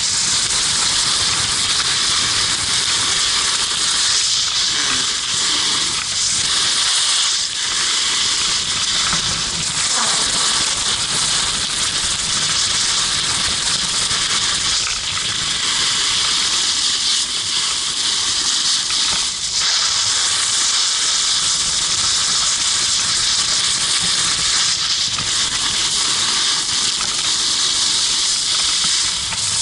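Steady, loud rushing hiss of a snowboard sliding and carving over groomed snow, mixed with wind rushing over the action camera's microphone as the rider descends at speed.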